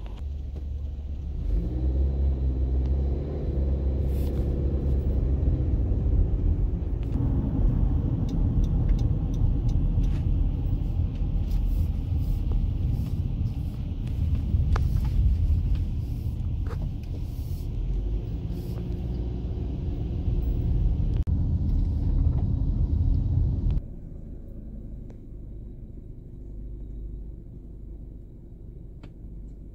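Diesel engine of a Heil front-loader garbage truck on a Mack chassis pulling ahead and driving, heard from inside a following car: a loud low rumble whose pitch rises and shifts as it accelerates. Near the end it drops suddenly to a quieter low rumble.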